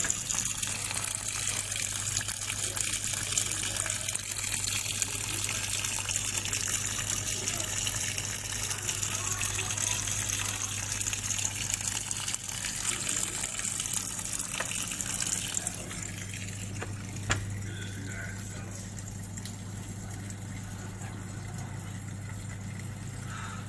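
Water rushing in a Panasonic NA-F90A4 fully automatic washing machine, a steady hiss over a low hum, stopping about two-thirds of the way through. A single click follows shortly after.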